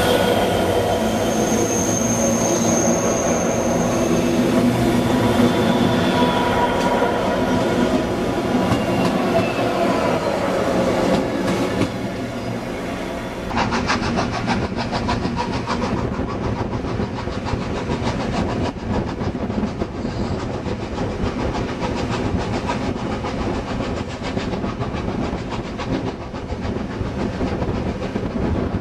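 Heritage passenger train in motion, heard from a carriage window. For the first dozen seconds a steady droning hum with a brief high whine near the start dominates; it fades out, and from about halfway on the carriage wheels give a fast, continuous clatter over the rail joints.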